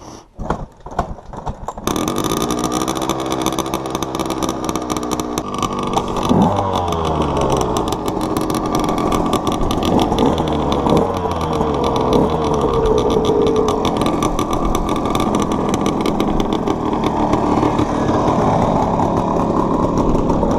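KTM 125 SX two-stroke dirt bike kick-started, its engine catching about two seconds in after a few kicks. It then runs and is revved up and down while it warms up.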